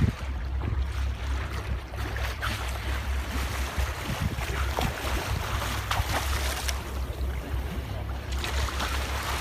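A steady low rumble under washing water noise, with wind buffeting the microphone and a few brief splashes.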